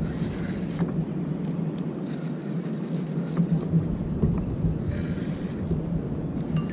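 Steady wind and water noise on an open-sea action camera's microphone, with a low rumble and a few faint clicks.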